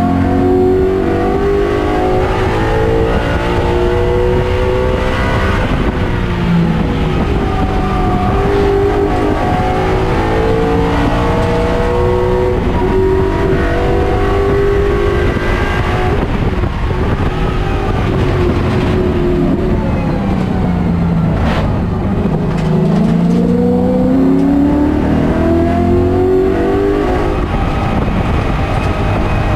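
Coyote V8-swapped Ford Mustang race car's engine heard from inside the cabin, pulling hard at full throttle with its pitch rising through the gears. About two-thirds through it falls in pitch as the car brakes and slows for a corner, then rises again as it accelerates out.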